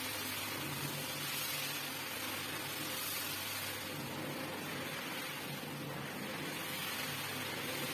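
Single-disc rotary floor scrubber running steadily, its motor humming while the spinning brush scrubs a soapy wet rug with a steady wash of noise.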